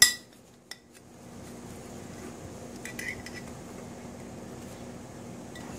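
Glassware clinking: one sharp clink with a short ring at the start, then a few faint clinks about three seconds in, as a glass herb jar knocks against a glass mixing bowl. A steady low hum runs underneath.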